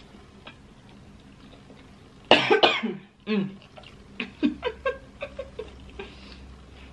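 A woman coughing: a sharp cluster of coughs about two seconds in and one more just after, from the pepper in a spicy seafood-boil sauce she is eating, which she puts down to black pepper, cayenne or crushed red pepper.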